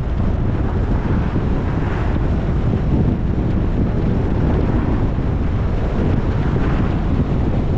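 Steady wind rushing over the microphone of a moving car, mixed with low road and engine rumble.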